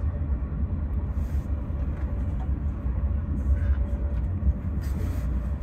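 Steady low rumble of a TGV inOui high-speed train running along the line, heard from inside the passenger car, with a couple of brief faint hisses.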